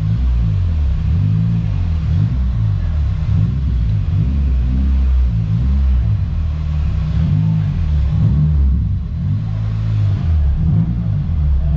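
Honda Accord Euro race car's K24 four-cylinder engine running at low revs, heard from inside the stripped cabin as a deep drone whose pitch wanders up and down with the throttle.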